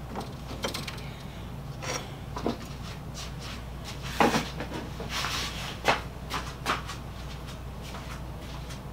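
Scattered light clacks and knocks of small hard objects being handled, loudest about four seconds in and again near six seconds, with a brief scuffing in between, over a steady low hum.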